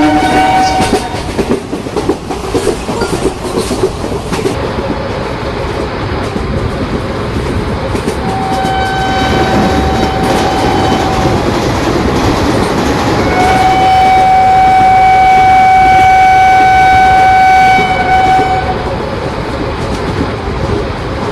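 Indian Railways electric train running past with wheels clattering over the rail joints, its horn sounded twice: a blast of about three seconds, then a longer one of about five seconds.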